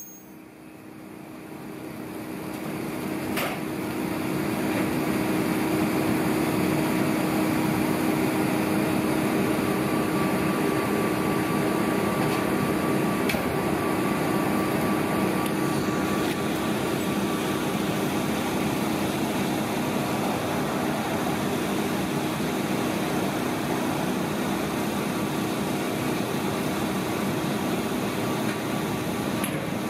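Stopped South Shore Line electric commuter train's onboard auxiliary equipment, its blowers and air conditioning, humming steadily. The hum swells up over the first few seconds, then holds level.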